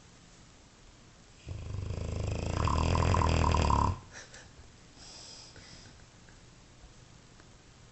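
Dogue de Bordeaux (French mastiff) snoring: one long, loud snore that builds for about two seconds and then stops abruptly, followed about a second later by a short, fainter breath.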